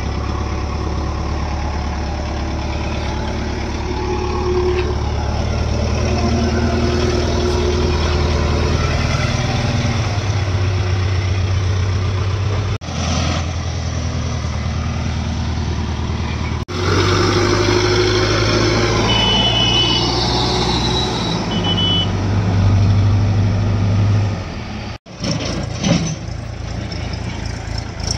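Heavy diesel engines of a JCB 3DX backhoe loader and tractors running at work, engine speed rising and falling a few times under load. The sound breaks off abruptly three times between clips.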